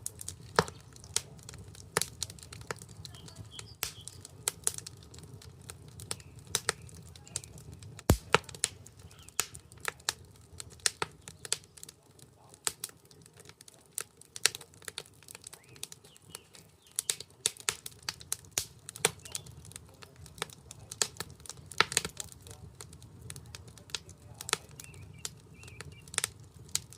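Wood fire crackling in a fire pit made from a car wheel rim: irregular sharp pops and snaps, a few much louder than the rest, with one loud snap about eight seconds in.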